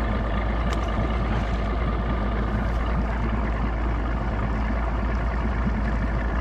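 Small boat's outboard motor running steadily at low trolling speed.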